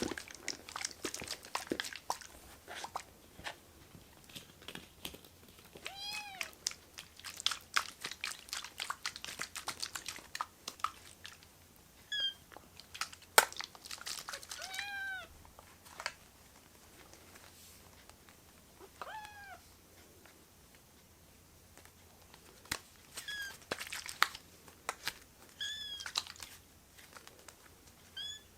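Kittens giving short, high meows every few seconds, with scattered small clicks and crackles from kittens moving and chewing.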